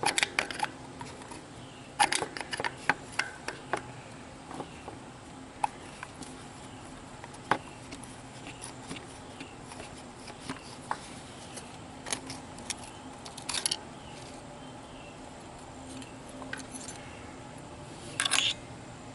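Small metallic clicks, taps and scrapes of hand tools and parts being worked in the open distributor of a Massey Harris tractor, as the old ignition points and condenser are taken out. The sounds come scattered, with a short run of scraping near the end.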